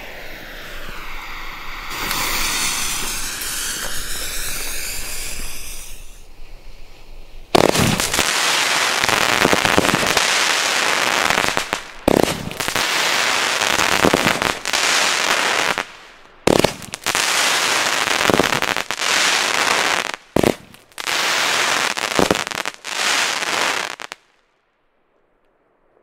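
Pyroland Trueno Espanol fan-shaped firework battery: the lit fuse hisses for a few seconds, then about eight seconds in the cake fires a dense, loud volley of shots with crackling star bursts. The volley comes in several runs with short breaks and stops suddenly a couple of seconds before the end.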